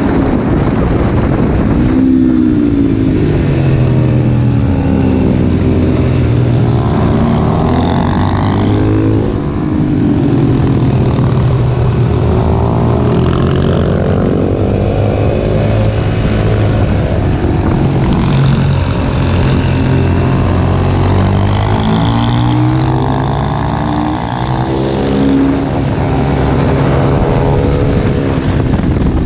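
Husqvarna FS 450 supermoto's single-cylinder four-stroke engine ridden hard, its revs rising and falling over and over through the laps.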